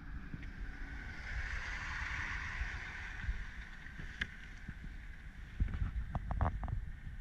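Wind rumbling on the microphone, with a few knocks and a cluster of scrapes and thuds near the end as the carpeted cargo floor panel of the SUV's trunk is gripped and lifted.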